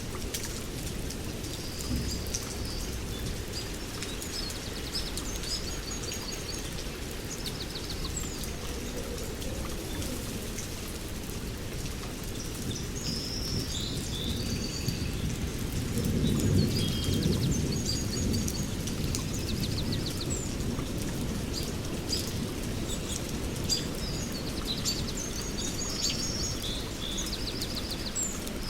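Steady heavy rain falling on forest leaves, with many small birds chirping repeatedly over it. About halfway through, a low rumble swells up and fades.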